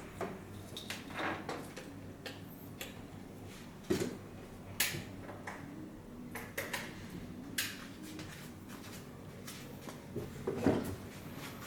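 Scattered light clicks and knocks of plastic connectors and cables being handled and plugged together while a 12-volt supply is hooked up to a car stereo head unit's wiring harness.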